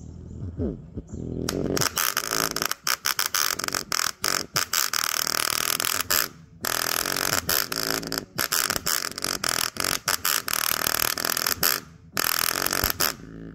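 Small full-range speaker driver overdriven with bass-heavy music by a Kinter K3118 2.1 amplifier. Faint bass slides at first, then about a second and a half in the bass hits and the speaker turns into a loud, harsh distorted buzz that cuts out briefly now and then, most clearly around six and twelve seconds in.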